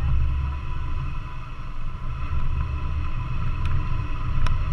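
Vehicle driving slowly on a sandy dirt trail, heard from a camera on its hood: a steady low engine and road rumble, with a couple of sharp ticks late on.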